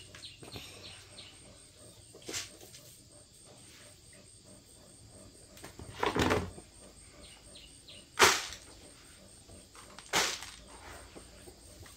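A few separate knocks and clatters, a couple of seconds apart, over faint background noise; the sharpest comes about eight seconds in, and a longer, duller thud a little after the middle.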